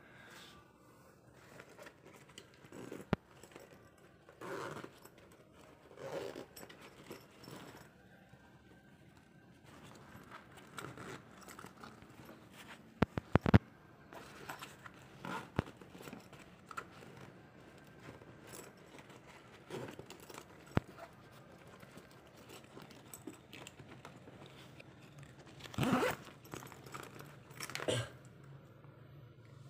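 Nylon duffel bag being handled and its zipper worked open, with fabric rustling and the zipper pull clicking. A cluster of sharp clicks just before the halfway point is the loudest sound, and two short louder bursts of rustling come near the end.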